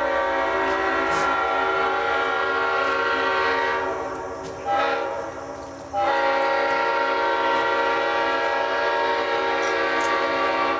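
Leslie five-chime locomotive air horn (RS-5 series) blowing its full chord: a long blast, a short toot, then another long blast starting about six seconds in.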